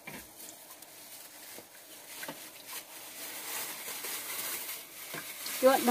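Plastic bags rustling and light clicks of spoons on bowls, with the rustling growing louder in the second half. A voice starts near the end.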